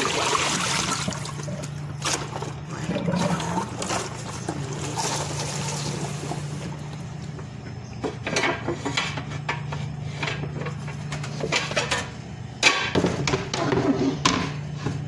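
Raw meat being washed by hand in a plastic bowl of water: splashing and sloshing, followed in the second half by wet handling with sharp clicks and knocks against the bowl. A steady low hum runs underneath.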